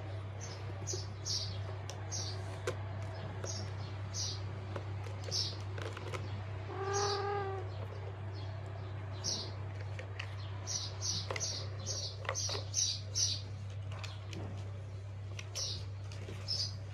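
Small bird chirping in quick, short, high notes through the whole stretch, sometimes several in a row. About seven seconds in there is one longer pitched call that rises and falls, and a steady low hum runs underneath.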